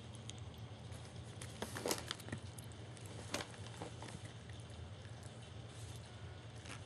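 Young German Shepherd puppies shifting about on newspaper and at their food dish: soft rustling with a few sharp crinkles, the loudest about two seconds in, over a steady low hum.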